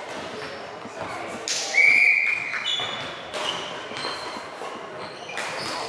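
A referee's whistle blows once, a short high blast about two seconds in, echoing in a large sports hall. A few short, fainter high squeaks follow.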